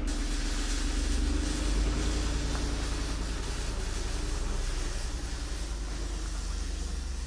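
A Jeep drives along towing a heavy trailer-mounted smoker, with engine rumble and road or tyre hiss. The sound fades gradually near the end.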